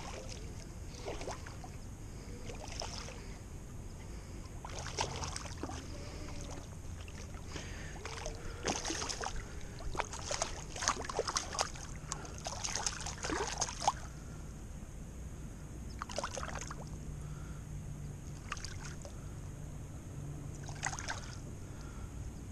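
Water splashing as a hooked striped bass thrashes at the surface and is handled at the water's edge: irregular splashes, busiest and loudest in the middle.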